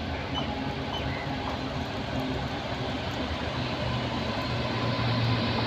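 Indian Railways WAP-7 electric locomotive hauling a passenger train slowly into the platform: a steady low drone with a rumble of wheels on rail, growing louder near the end as it comes closer.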